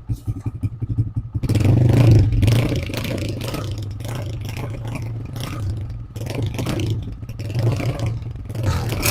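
125 cc motorcycle engine running through its silencer: a regular low exhaust beat at idle, then the throttle opens about a second and a half in and it runs on at higher revs.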